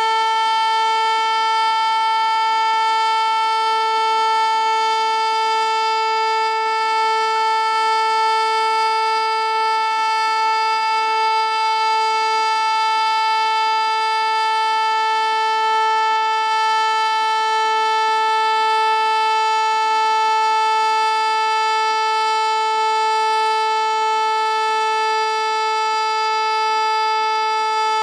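ASC T-121 outdoor warning siren sounding its steady alert signal, one unbroken tone at a constant pitch. It is stuck running long past its usual one-minute test because it missed the cancel tones.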